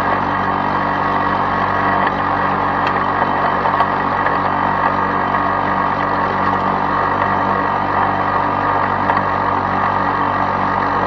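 Lawn-Boy two-stroke single-cylinder push mower engine running at a steady speed while mowing, an unchanging buzzing drone.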